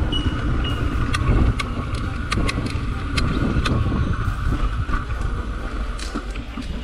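Mountain bike rolling along a dirt trail: a steady rumble of wind on the microphone and tyre noise, with many sharp clicks and rattles from the bike jolting over the rough ground.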